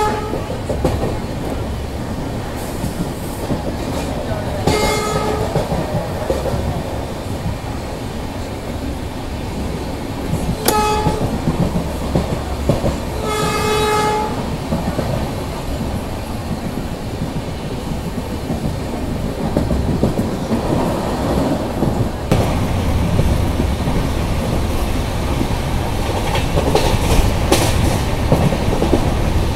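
Passenger train running at speed, with steady rumble and clickety-clack of the coaches on the rails. A train horn sounds in short blasts about 5 s, 11 s and 13 s in, the last the longest.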